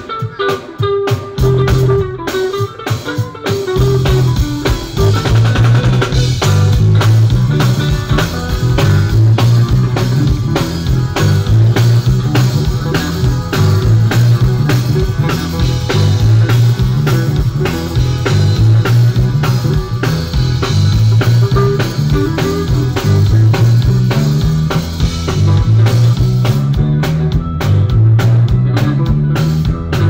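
Live band playing at a soundcheck: electric guitar fairly sparse at first, then a drum kit and a heavy, repeating bass line come in about four seconds in and the full band plays on steadily.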